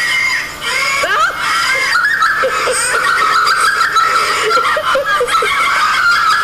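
High-pitched giggling laughter.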